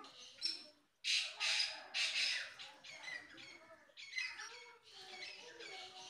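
Bulbul nestlings begging for food at the nest as the parent feeds them: a loud cluster of high, rapid calls from about a second in, then softer repeated calls.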